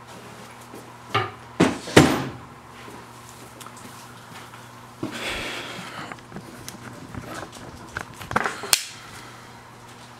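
Birch-plywood drawer being handled and slid: a few wooden knocks about a second in, a sliding scrape about five seconds in, and more knocks near the end.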